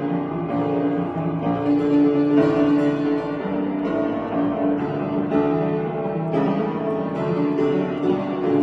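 Piano music: a keyboard playing continuously, with several notes sounding together.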